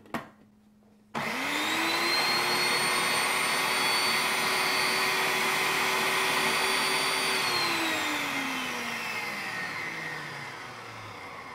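Electric food processor motor starts about a second in, spinning up quickly to a steady whine as it blends chopped mint with hot water and honey. After about six seconds it is switched off and winds down, its pitch falling slowly.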